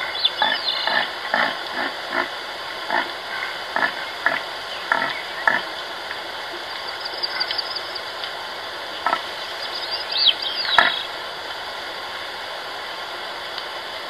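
Deer giving a series of short, low calls, about two a second for five seconds, then a couple more near the end, over steady forest ambience. Birds chirp briefly a few times.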